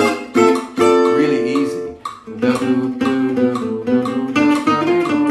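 Gypsy jazz acoustic guitar with a D-shaped soundhole, played alone in A minor: sharply picked chords ring out in the first two seconds, then a quicker run of changing picked notes and chords.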